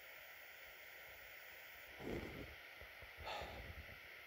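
Faint, steady hiss of room tone, with two soft, brief noises about two seconds in and a little after three seconds.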